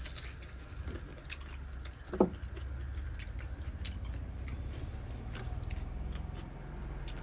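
Close-up eating sounds: chewing with scattered small wet mouth clicks over a steady low hum. About two seconds in there is one brief sound that falls sharply in pitch.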